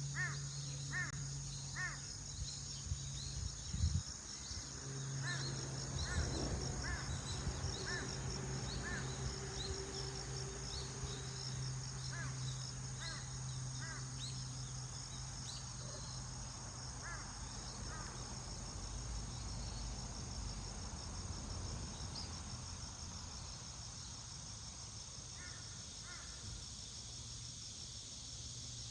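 Crows cawing, short calls repeated about once a second at first and again twice near the end, over a steady high insect chorus and a low steady hum.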